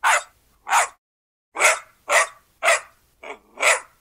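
A puppy barking in a quick series of short, sharp yaps, about seven in four seconds, with a brief pause about a second in.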